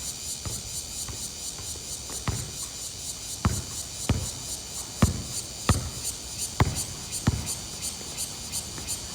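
A basketball bouncing on a hard court: about ten irregular thumps, roughly one every half second to a second. Under them runs a steady high buzz of insects.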